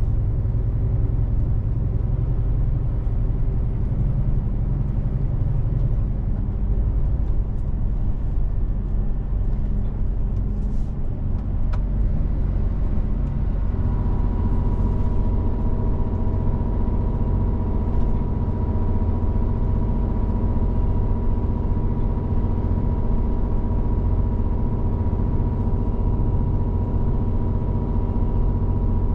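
Heavy truck's diesel engine and road noise heard from inside the cab while driving: a steady low rumble. About halfway through, a steady hum made of several even pitches comes in over it and holds.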